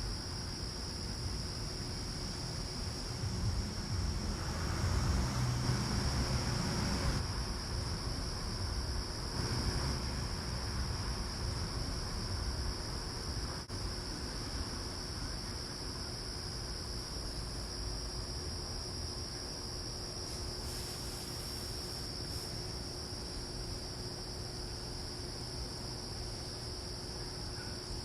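Insects trilling in a steady high-pitched chorus, with a low rumble that swells and fades during the first ten seconds or so.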